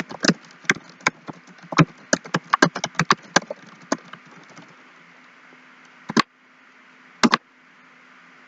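Computer keyboard typing: a run of quick, irregular keystrokes for about four and a half seconds, then two single, louder key presses about a second apart near the end.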